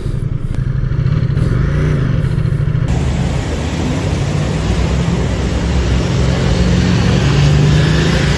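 Ducati Diavel 1260's V-twin engine running with a steady low note. About three seconds in, a loud rushing hiss sets in suddenly over it and stays.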